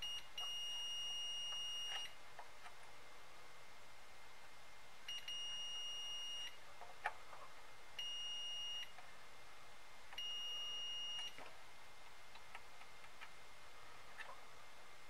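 Multimeter continuity beeper sounding four times in a steady high tone, each beep lasting from under a second to nearly two seconds, as the test probes bridge the power supply's rail and ground: the beeps signal a short on the 48-volt rail. Light clicks of the probe tips on the board come between the beeps, with one sharper tap about seven seconds in.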